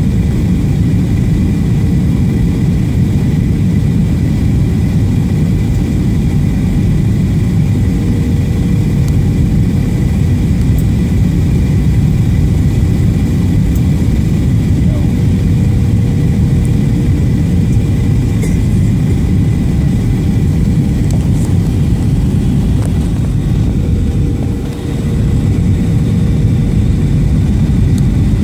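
Cabin noise of a Boeing 737-800 on final approach, heard beside its CFM56-7B turbofan: a steady low rumble of engine and rushing air with a thin steady whine above it. The level dips briefly about 25 seconds in.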